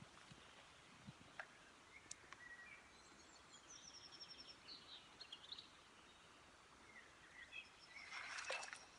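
Faint outdoor background with scattered songbird chirps and a quick descending run of high notes midway, then a brief louder burst of chirping near the end.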